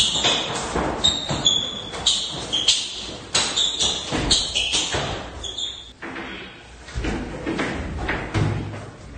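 Running footsteps and repeated thuds on a tiled bathroom floor, with short high squeaks scattered among them during the first several seconds.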